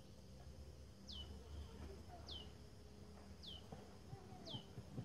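A bird calling faintly: four short, high whistled notes, each sliding down in pitch, repeated about once a second.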